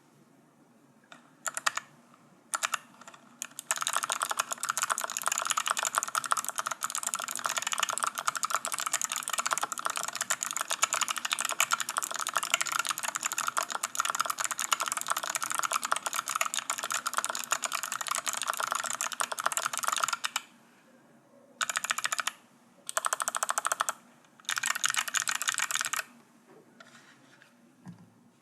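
Typing on a Planck ortholinear keyboard with Kailh BOX White clicky switches, in an aluminum case with foam and PBT DSA keycaps. A few single keystrokes come first. Then there are about seventeen seconds of fast, continuous clicking keystrokes, and after that three short bursts of typing.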